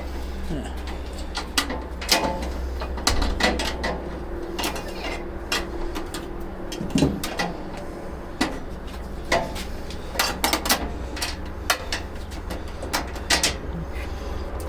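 Scattered metal clinks and knocks as steel tool-cart brackets and hardware are handled and fitted, over a steady low rumble, with faint voices in places.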